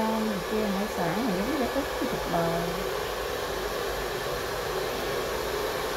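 Hair dryer running with a steady whooshing hum. A voice is heard over it during the first three seconds.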